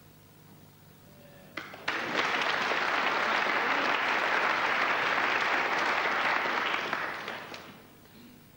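Audience applause at a snooker match, starting abruptly about two seconds in just after two sharp clicks, holding steady for about five seconds, then fading out near the end.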